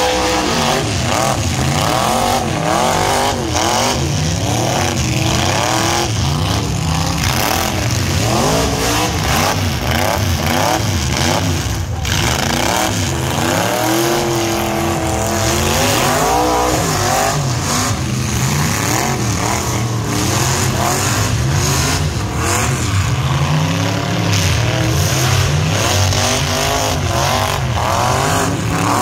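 Several demolition-derby pickup truck engines revving hard at once. Their overlapping pitches keep climbing and falling as the trucks push and pull against each other.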